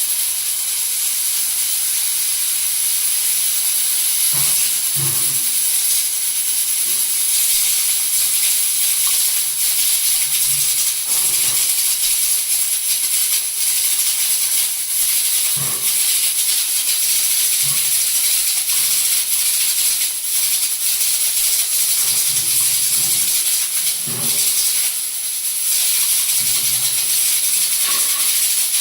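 Prestige pressure cookers venting steam through their whistle weights: a loud, steady hiss with a high whistling tone held throughout, meaning the cookers are at full pressure.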